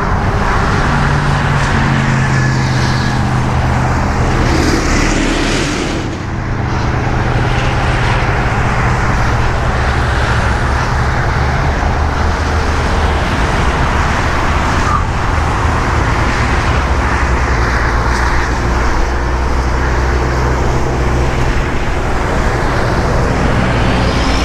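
Interstate traffic passing at highway speed: a steady rush of tyres and engines, with single vehicles swelling as they go by.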